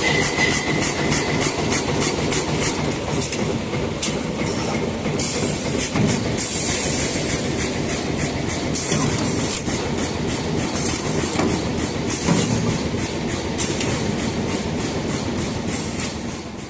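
High-speed T-shirt bag sealing and cutting machine running: steady mechanical noise with a rapid, even clatter of several strokes a second. It fades out at the very end.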